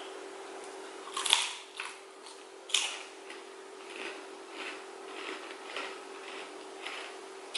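Close-up crunching bites and chewing of crisp snack food: two loud sharp crunches, then a run of smaller crunchy chews, over a steady low hum.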